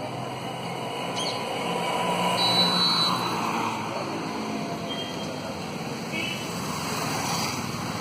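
Steady buzzing hum of a honey bee colony crowded on its open comb, swelling slightly partway through, with a few brief high chirps over it.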